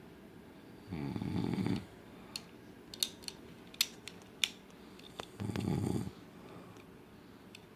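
A man snoring loudly: two long rattling snores about four and a half seconds apart, one about a second in and one after five seconds. A few light sharp clicks fall between them.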